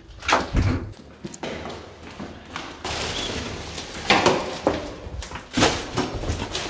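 Handling noises: a string of thumps and knocks with rustling between them, as a rubbish bag is picked up to be carried out.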